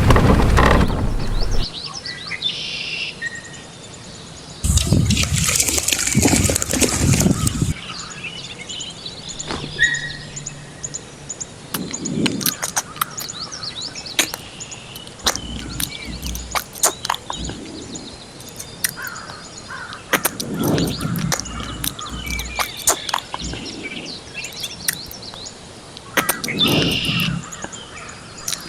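Birds chirping, with many small sharp clicks and taps scattered through, and a burst of rustling, scraping noise for a few seconds early on. A low motor sound fades out in the first couple of seconds.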